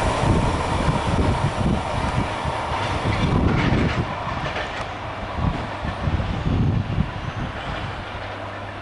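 Freight train of container wagons rolling away along the track, its wheels thumping and clattering over the rails, fading steadily as the train recedes.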